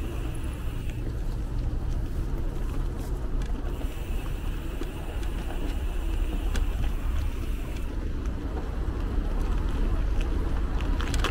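Wind rumbling on the microphone of a moving bicycle, over steady city street and traffic noise.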